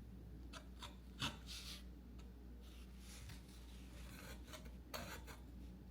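Faint, irregular scraping strokes of a hand tool cutting and shaping foam crown molding, coping the back of the piece so the joint fits.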